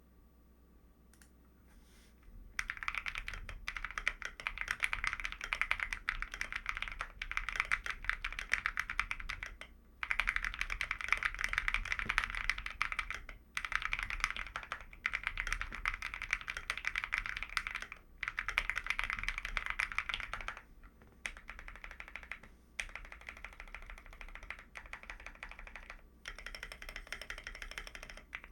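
Fast typing on an AKKO ACR98 mechanical keyboard with lubed Gazzew Boba U4T tactile switches, a PE foam and tape mod, and ASA-profile keycaps: dense runs of keystrokes with brief pauses, starting about two and a half seconds in and softer in the last third.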